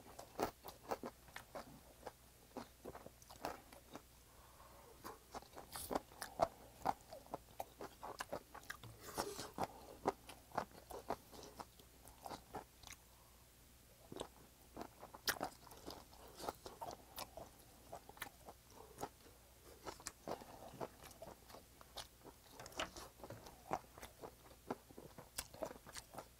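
Close-miked chewing of a mouthful of stir-fried squid and raw cabbage wrap: irregular small crunches and wet mouth clicks, the squid chewy and firm.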